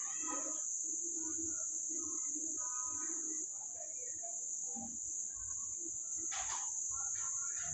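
Steady, high-pitched insect trill, typical of crickets, running without a break.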